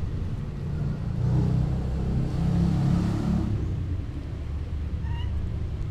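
A motor vehicle passing nearby: a low rumble that swells between about one and three and a half seconds in, then eases back. A brief high chirp sounds about five seconds in.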